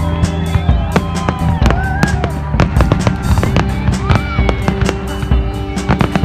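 Aerial fireworks bursting, a dense run of sharp pops and crackles in quick, irregular succession.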